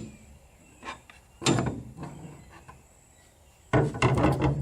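Metal tools and aluminum angle handled against an aluminum frame: a light tap, a sharp knock about a second and a half in, then a quick clatter of several knocks near the end.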